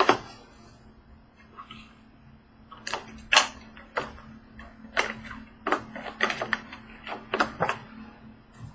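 A cardboard trading-card box and its packs being handled and opened: a dozen or so sharp, irregular clicks and crackles, mostly from about three seconds in, over a steady low hum.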